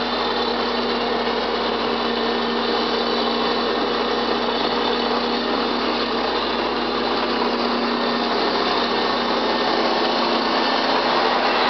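Diesel engine of a crawler loader running steadily under load while it carries a boulder in its bucket, a continuous even drone with a steady hum.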